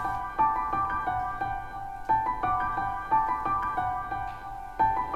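Background music on a keyboard instrument: a gentle melody of struck notes, about three a second, in an even rhythm.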